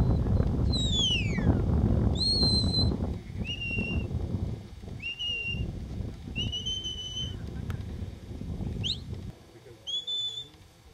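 Sheepdog handler's whistle commands to a working border collie. A falling whistle comes about a second in, then a run of short steady whistle notes at different pitches, a quick rising whistle near the end and one more short note. A low rumbling noise runs underneath until it stops about nine seconds in.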